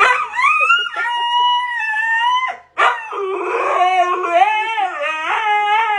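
Dog howling in two long calls: a high, held howl, then after a brief break a lower howl that wavers up and down in pitch.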